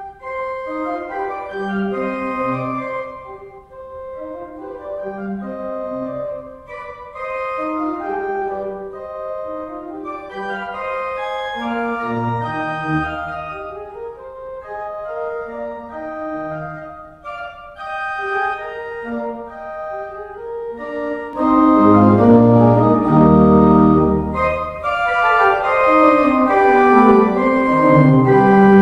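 Church pipe organ playing a slow piece, a melody over held chords. About two-thirds of the way through it grows louder and fuller as deep bass notes come in.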